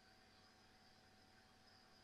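Near silence: a faint, steady background hiss with a low steady hum.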